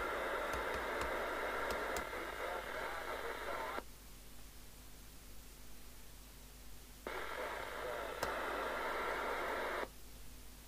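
FM CB radio receiver on its aerial playing hissy, static-laden received signals with faint voices through its speaker; the audio cuts off abruptly about four seconds in as the squelch closes, comes back about seven seconds in, and cuts off again near ten seconds.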